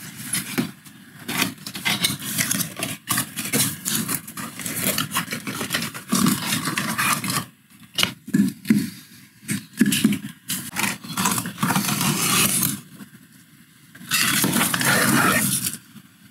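Cardboard packaging being opened and handled: irregular scraping, rustling and light knocks as box flaps are opened and the contents are slid out. A longer spell of steady rustling near the end, as the plastic-wrapped sharpener comes out.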